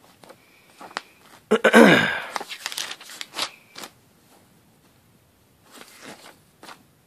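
Glossy magazine pages being leafed through by hand: scattered rustles and flicks of paper, with one louder sweeping rustle of pages about two seconds in.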